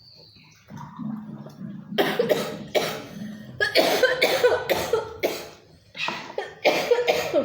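A woman coughing in a long fit of repeated, harsh coughs starting about two seconds in, set off by the chili heat of the spicy rujak she is eating.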